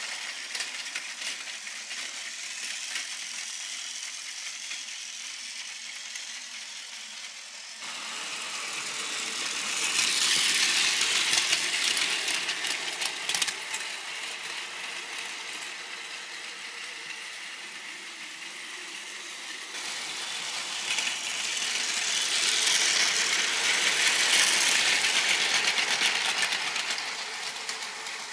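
Battery-powered Plarail toy train (Tobu 100 series Spacia) running on plastic track: a steady motor whir with fine rapid clicking, swelling louder twice as the train comes close.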